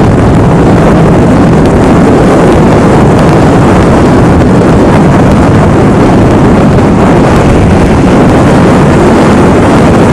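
Loud, steady rumbling noise aboard a ship at sea, with wind buffeting the microphone.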